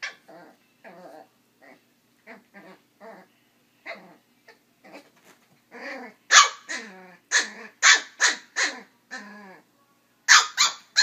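Small dog barking over and over in short calls, soft at first and louder and sharper from about halfway, some of the barks coming in quick pairs.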